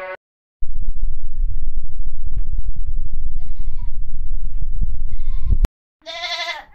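Boer goats bleating: two short bleats through a heavy low rumble, then, after a cut, one loud bleat near the end.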